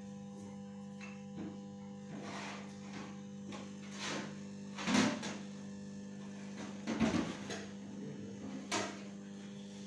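A handful of short knocks and clinks from gearbox parts being handled, the loudest about halfway through, over a steady electrical hum.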